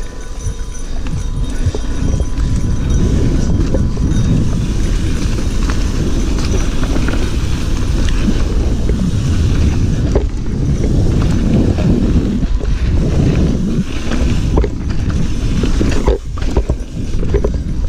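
Mountain bike riding fast over a dirt and leaf-litter trail. Wind buffets the action-camera microphone and the bike rattles and knocks over bumps. It gets louder over the first few seconds as the bike picks up speed.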